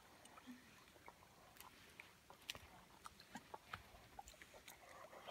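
Near silence, with faint, scattered small ticks and splashes of water from a golden retriever wading through shallow water while dragging a log.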